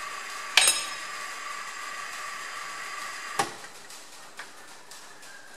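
A steady motor whine from the milling machine, with a sharp metallic knock about half a second in. The whine stops with another knock about three and a half seconds in, leaving a few faint ticks.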